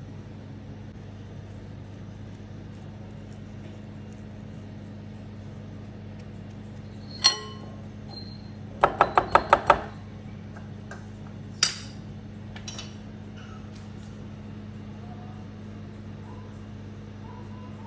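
Kitchenware clinking against glass: one sharp clink, then a quick run of about six taps in a second, then another single clink, over a steady low hum.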